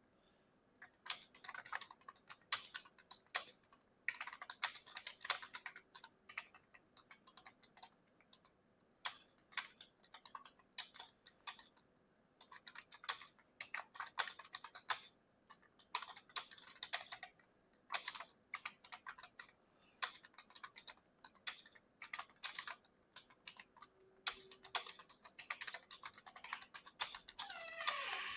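Typing on a computer keyboard: quick bursts of keystrokes separated by short pauses. A short falling sound comes near the end.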